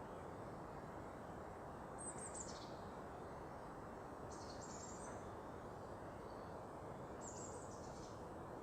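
A small songbird giving three short, high-pitched phrases of quick falling notes, a couple of seconds apart, over a steady low background rush.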